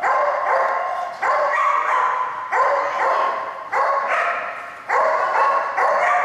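A dog barking over and over, about one bark a second, each bark echoing in a large hall.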